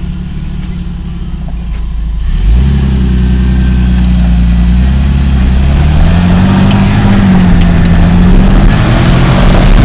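Lifted off-road Jeep's engine running low at first, then revving up about two and a half seconds in and pulling under load as the Jeep crawls up over tyres. The revs rise and fall with the throttle.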